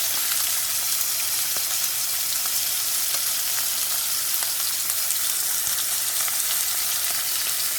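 Steak searing in a hot cast iron skillet: a steady sizzle of fat and juices, dotted with small crackles and pops.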